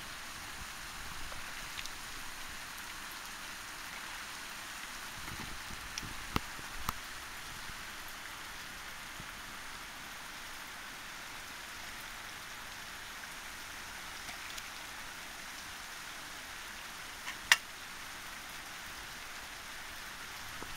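Steady rain-like hiss of outdoor background noise, with a few short clicks about six to seven seconds in and one sharp, louder click near the end.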